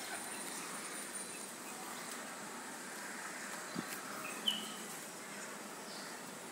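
Faint, steady ambience of a quiet, nearly empty city street, with a soft knock a little under four seconds in and a single short, high bird chirp just after.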